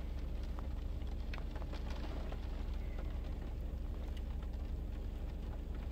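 Steady low hum inside a car's cabin, with a few faint ticks of rain on the car.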